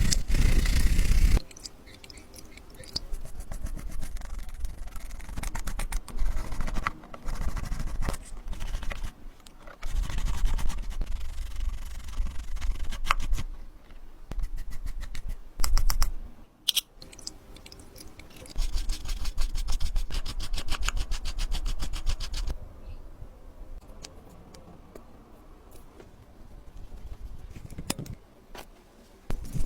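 Small tools scraping, rubbing and clicking against watch parts during hand work: a run of short strokes and sharp ticks, with pauses and a quieter stretch near the end.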